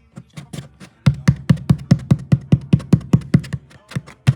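A hand tapping and pressing on the repaired paper cone of a 12-inch B&C midrange speaker. It makes a quick, even run of low thumps, about five a second, beginning about a second in.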